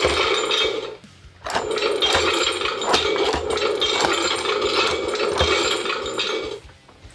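Hasbro Marvel Legends Infinity Gauntlet playing its electronic sound effect through its small built-in speaker: a steady hum with a hiss over it. It breaks off briefly about a second in, then runs for about five seconds more.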